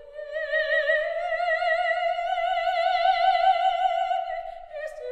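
Operatic singing in background music: a voice holds one long high note with a wide vibrato, rising slightly in pitch, then drops to a lower note near the end.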